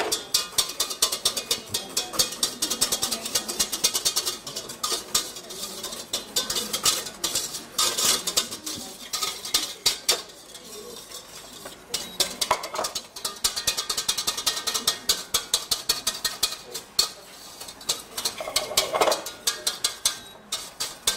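Wire whisk beating fast against the inside of a stainless steel saucepan, a continuous clatter of metal on metal, many strikes a second. It is whisking a warm butter sauce that is thickening into an emulsion.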